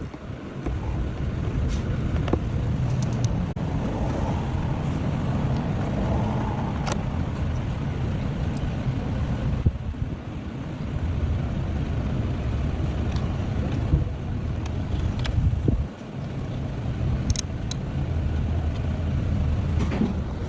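Car engine running steadily with a low hum, dipping briefly about 10 and 16 seconds in.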